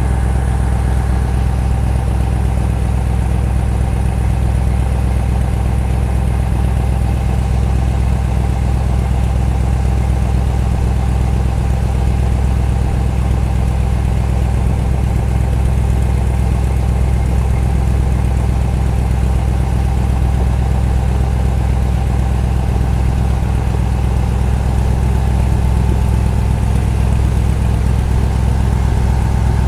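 Strizh-7 passenger launch's engine running steadily under way: a loud, even low drone with a faint steady whine, over water washing along the hull.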